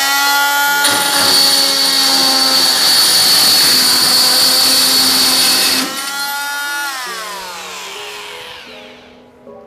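Pigeon G561 oscillating multi-tool running at speed 5, its Ingco 34 mm wood-and-metal blade cutting thin-walled hollow light steel section. From about one second in to about six seconds there is a harsh screech with a high ringing tone over the motor whine. The motor then winds down with a falling whine and stops near the end.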